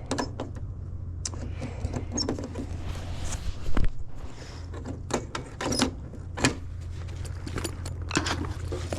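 Steady low hum of an air-conditioning condenser unit that is still powered, with its fan not running. Over it come scattered clicks, clatters and metal knocks from handling tools and parts at the unit, the loudest a little past halfway.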